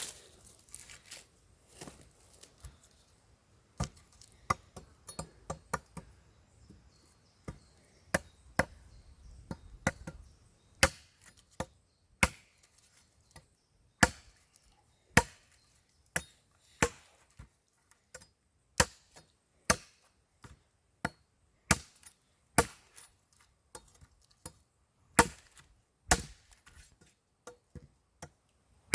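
Ontario Bushcraft machete chopping dry wood: sharp single strikes, a few scattered at first, then a steady run of about one blow a second from roughly ten seconds in.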